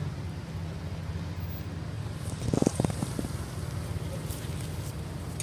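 Steady low background rumble, with a short cluster of three or four dull thumps about two and a half seconds in, the loudest sounds.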